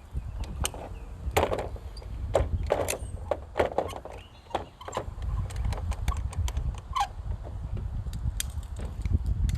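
Metal tools and surface-cleaner parts clinking and knocking as they are handled, a dozen or so irregular sharp clicks, over a low steady rumble.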